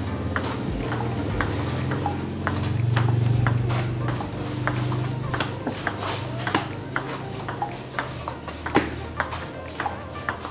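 Table tennis rally of chop strokes: an irregular run of sharp clicks as the ball is struck by the rubber-covered bats and bounces on the table, several a second, over background music.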